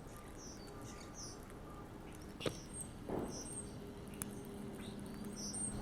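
Faint, high-pitched chirps of small birds, repeating every half second or so, with a single sharp click about two and a half seconds in.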